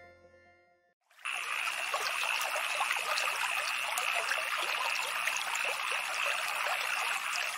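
A fading tail of music in the first second. Then steady trickling running water cuts in abruptly, like a small stream.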